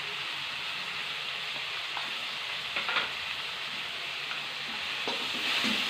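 Chopped onions and tomatoes with spice powder sizzling steadily in hot oil in a pan while being sautéed, with a few light taps of the stirring spoon about two and three seconds in.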